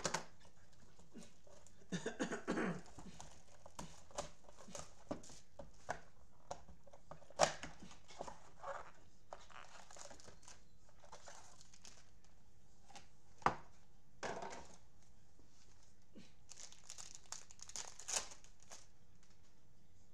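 Panini Prizm football blaster box and its foil card packs being torn open by gloved hands: packaging crinkling and tearing, with scattered sharp snaps of cardboard and wrapper.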